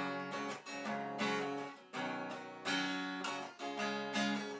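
Acoustic guitar strumming chords, with no singing, in a Nepali song cover.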